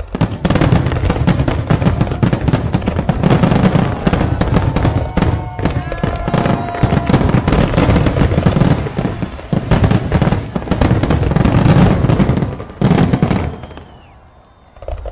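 Aerial fireworks shells bursting in a rapid barrage of overlapping booms and crackles. The barrage dies away about a second and a half before the end.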